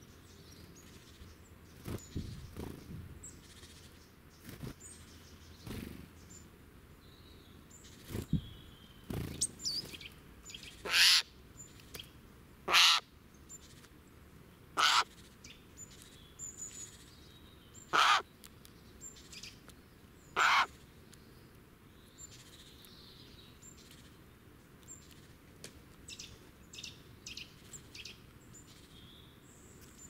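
Eurasian jay giving five harsh, rasping screeches a few seconds apart, through the middle of the stretch. Faint high call notes of small woodland birds sound throughout.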